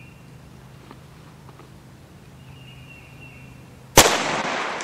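A single .38 Special round fired from a single-shot 12-gauge shotgun through a smooth-bore .38 Special chamber adapter: one sharp shot about four seconds in, followed by a long fading echo.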